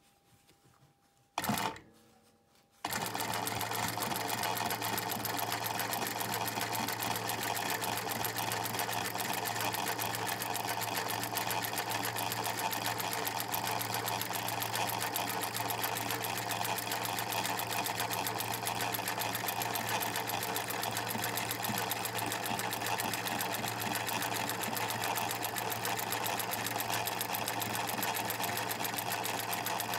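Singer 107W102 Irish free-motion embroidery machine sewing an eyelet through its eyelet plate. After a short knock about a second and a half in, it starts at about three seconds and runs at a steady fast stitch, a rapid even needle rhythm over a constant motor hum.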